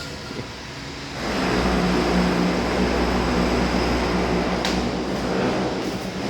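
Steady machine noise with a low hum, starting abruptly about a second in and holding level.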